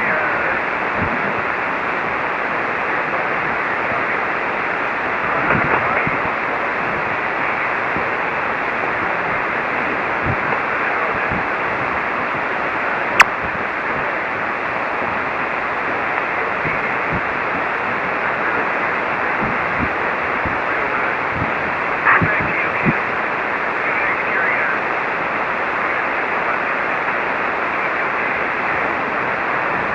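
Steady hiss of a shortwave receiver on 40-metre single-sideband, with a weak station's voice now and then barely rising just above the noise level. One sharp click about thirteen seconds in.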